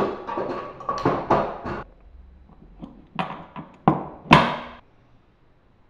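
Metal hand tools clattering and knocking as a hand rummages in a metal toolbox: a run of quick rattles for about two seconds, then a few separate sharp knocks, the last and loudest with a short ring.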